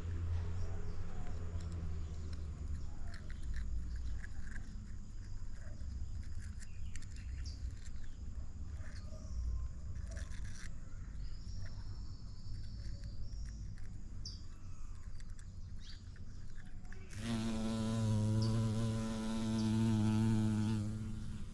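Bumblebee buzzing close by for about four seconds near the end, a steady hum with a slight waver. Before it, a low wind rumble and a few faint bird chirps.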